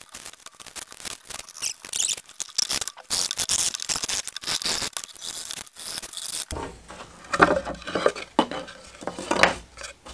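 Blue painter's tape being peeled off the back of a Baltic birch plywood sign: a crackling rip for about the first six seconds. Then a handful of rasping strokes as a Japanese pull saw cuts the small holding tabs to free the sign from its frame.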